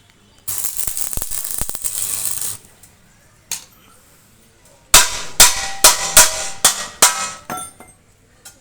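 A steady hiss for about two seconds, then a quick run of about eight sharp clinks with a ringing tone.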